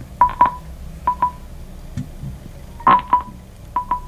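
Nokia Play 360 Bluetooth speakers sounding short electronic status beeps as they pair with a phone by NFC: four quick double beeps of one pitch, the third pair the loudest.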